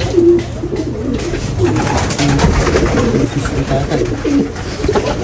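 Racing pigeons cooing, many low coos overlapping without a break.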